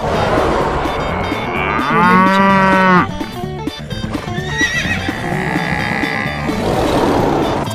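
A cow moos once, for about a second, about two seconds in, over the dense, steady rumble of a stampede; a higher wavering animal call follows about five seconds in.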